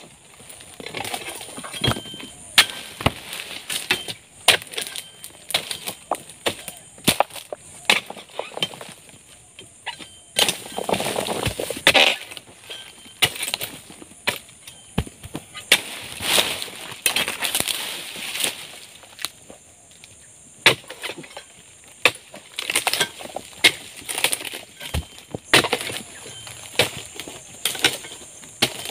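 Long-poled oil palm harvesting chisel striking and prying at the frond bases and bunch stalks of a young oil palm: repeated sharp chops and cracks at irregular intervals, with a few longer rustling, scraping stretches.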